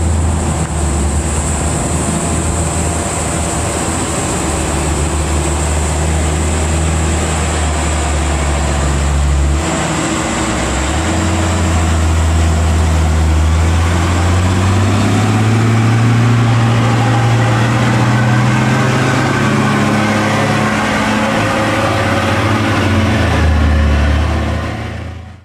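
Heavy diesel truck engine pulling up a steep incline, its pitch rising about halfway through and then holding steady. The sound cuts off abruptly at the end.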